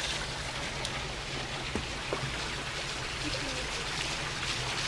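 Water from a pump-fed spillway waterfall pouring steadily into a spa tub and splashing on the surface, with two faint clicks about two seconds in.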